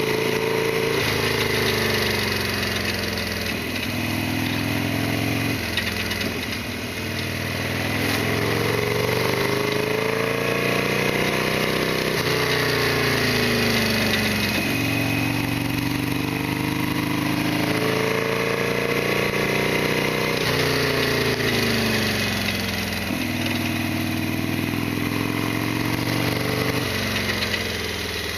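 Harley-Davidson Sportster XL1200R's air-cooled V-twin engine under way. Its pitch rises under acceleration and drops sharply at each upshift, about seven times, with falling pitch as the throttle closes between.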